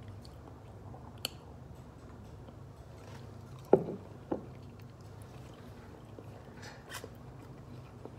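A person eating a forkful of roasted potato: a small click, then a loud dull thump and a softer one as the bite goes into the mouth, followed by quiet chewing. A low steady hum runs underneath.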